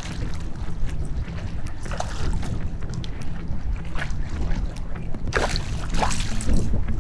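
A hooked Asian sheepshead wrasse thrashing at the sea surface, with short splashes, the loudest about five and a half seconds in, over a steady low rumble.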